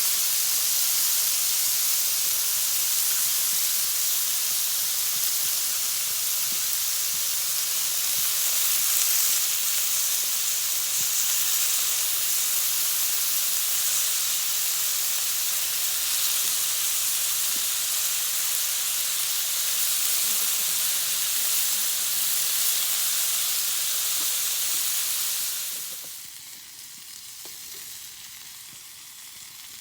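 Food frying on a hot iron griddle, a steady sizzle that becomes much quieter about four seconds before the end.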